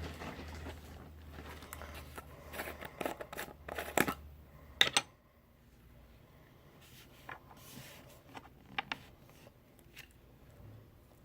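Plastic packaging being handled and opened by hand, crinkling and clicking, with two sharp clicks about four and five seconds in, then quieter scattered handling clicks.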